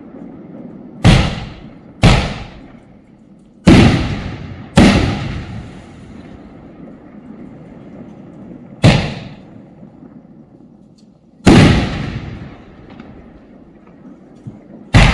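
Multi-shot firework cake of large aerial shells firing: seven loud bangs at uneven intervals of one to four seconds, each trailing off in a rolling echo.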